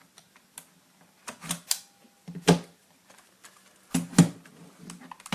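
Irregular sharp plastic clicks and knocks from an Acer Aspire One netbook and small tools being handled, the loudest about two and a half and four seconds in.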